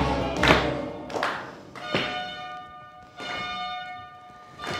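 A bell struck about five times at uneven intervals, each stroke left ringing and slowly fading before the next.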